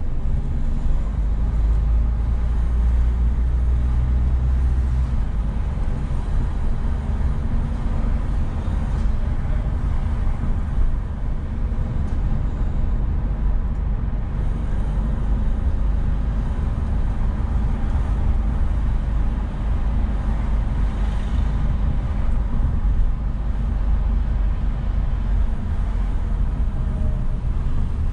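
Car driving: a steady low rumble of engine and road noise, heaviest at the bottom and a little stronger for the first few seconds.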